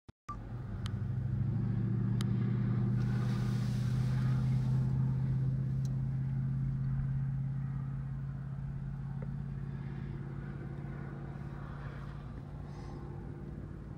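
A low, steady motor hum that swells to its loudest about four seconds in and then slowly fades.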